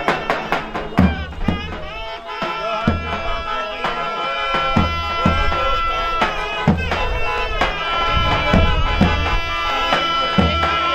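Turkish folk dance music: a reedy wind instrument plays an ornamented melody with long held notes over a deep, steady drum beat.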